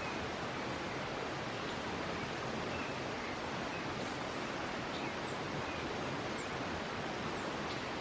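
Steady, even outdoor hiss, with a few faint, short, high bird chirps scattered through it.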